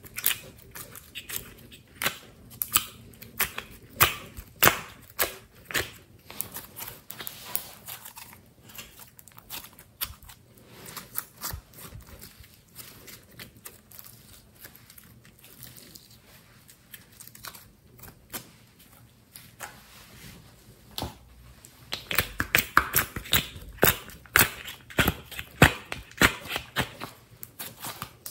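Glossy slime kneaded and squeezed by hand, giving off irregular sticky pops and clicks, which come thickest in a quick run near the end.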